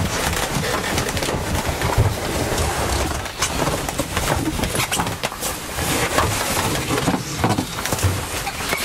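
Rustling and bumping of clothing and tarpaulin against the hull as a person squeezes through a tight hatch close to the microphone, with many small irregular scrapes and knocks.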